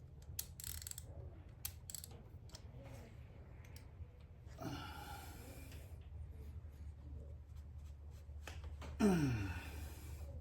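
Scattered small clicks and scrapes of hand tools at work on spark plugs, over a steady low hum. A heavy exhale comes near the middle, and a long, loud sigh falling in pitch comes near the end.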